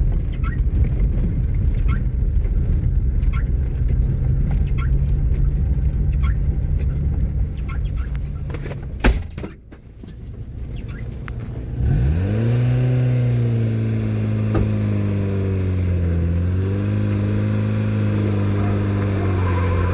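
Car: a low rumble with faint repeated ticks, a single thump about nine seconds in, then from about twelve seconds a car engine runs with a steady hum that dips and rises gently in pitch.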